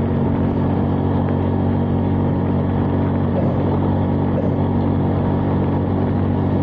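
Motorcycle engine running at a steady cruise, with road and wind noise, holding an even pitch.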